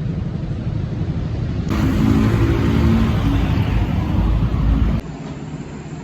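Motorcycle engines running with road noise; about two seconds in a louder, higher engine note joins, then cuts off suddenly about a second before the end, leaving a quieter rumble.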